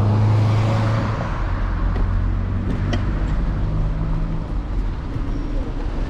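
City street traffic: a vehicle engine's low drone, loudest in the first second, over steady road noise, with a few light clicks about halfway through.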